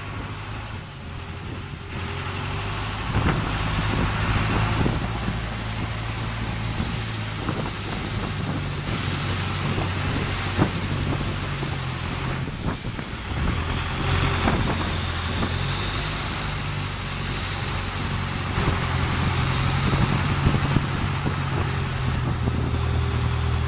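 Longtail boat's engine running steadily as the boat travels along a canal, with water rushing past the hull. The engine gets louder about two seconds in and dips briefly around the middle before picking up again.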